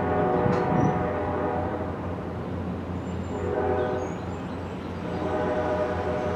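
Nathan K5LA five-chime air horn on a GP7 diesel locomotive sounding in separate blasts: one ending about a second in, a short one near the middle, and a longer one starting near the end. A steady low rumble from the moving train runs underneath.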